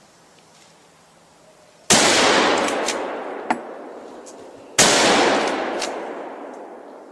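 Two rifle shots about three seconds apart, the first about two seconds in. Each report rolls away slowly through the forest, with a short sharp click between them.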